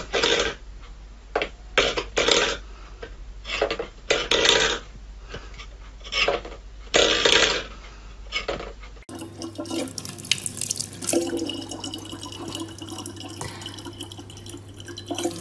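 Water splashing in a string of short bursts, then, after a cut, running water from a tap.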